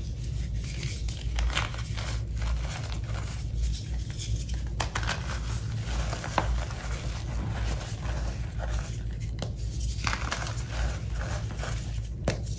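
Hands snapping and crushing pieces of reformed gym chalk, pressed-back chalk powder: irregular dry crunches and crumbling crackles as the pieces break apart into powder.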